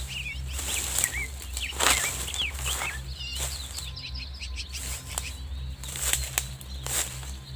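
Small birds chirping, a rapid scatter of short high chirps and quick runs of notes, over sharp crackles from steps through dry leaves and a steady low rumble.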